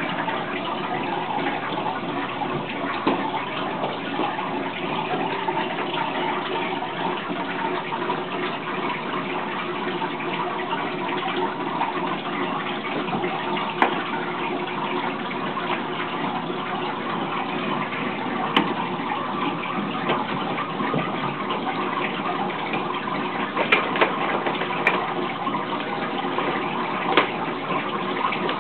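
Water running and splashing steadily in a turtle aquarium, with a few light taps about halfway through and near the end.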